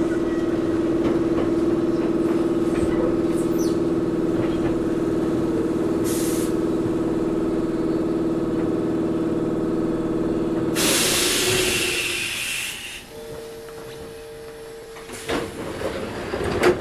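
Interior sound of a Toyohashi Railway 1800-series (ex-Tokyu 7200) resistance-control electric railcar: a steady hum of several fixed tones over rumble. About eleven seconds in comes a loud burst of compressed-air hiss lasting about two seconds. After it the car goes much quieter, leaving a single hum and a few clicks.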